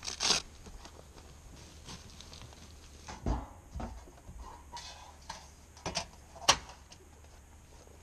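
Velcro on a pop-up camper's canvas tent flap being ripped open and pressed, with canvas rustling. A rasping rip comes right at the start, a dull thump a little over three seconds in, and a sharp click about six and a half seconds in.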